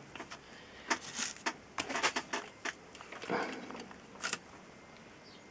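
A scatter of faint, irregular light clicks and taps with a brief rustle, from about a second in to a little past four seconds, then only low background hiss: small handling noises.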